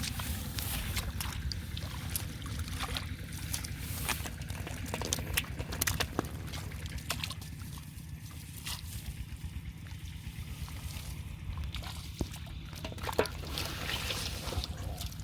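Shallow water splashing and trickling in irregular bursts, with short sharp splashes every second or so, over a steady low rumble.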